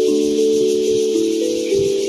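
Instrumental music: a slow melody of ringing notes, several held at once, over a steady high hiss.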